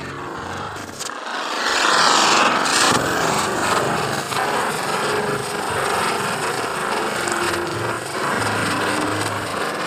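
Lit chakri (ground-spinner firework) spinning and spraying sparks: a continuous loud hiss that swells about a second in, is loudest around two seconds in, and then carries on steadily.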